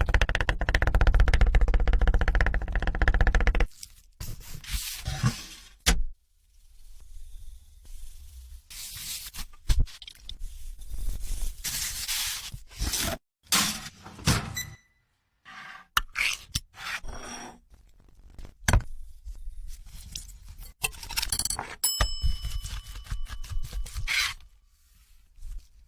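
Kitchen handling sounds: a loud rapid rattle for the first three or four seconds, then scattered scrapes, rubs and knocks, with a brief ringing tone near the end.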